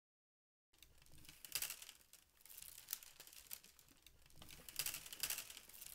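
Willow rods being woven into a basket by hand, creaking and crackling in quick, irregular clicks. Faint, starting after a short silence.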